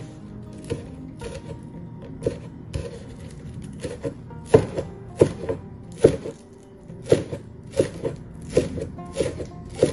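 Kitchen knife chopping green onions on a wooden cutting board: sharp chops about one every half second to second, louder from about halfway through, over quiet background music.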